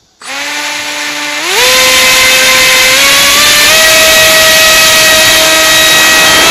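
Electric brushless motor (Cobra 2814, 2100 kV) spinning an APC 6x5.5 propeller on an FPV flying wing, heard from the onboard camera as the wing is launched and climbs: it starts suddenly just after the start, jumps to a higher whine about a second and a half in, then climbs in two more small steps, with rushing air underneath.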